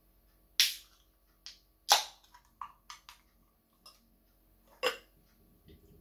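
Aluminium beer can opened by its ring-pull: a sharp crack with a brief hiss of escaping gas about half a second in, then a second loud snap just before two seconds. Lighter clicks and knocks follow, with another sharp knock near five seconds.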